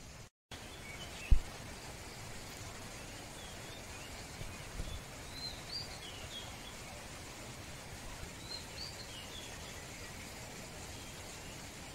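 Birds chirping, short high calls scattered through a steady hiss of outdoor background noise, with one sharp low thump about a second in.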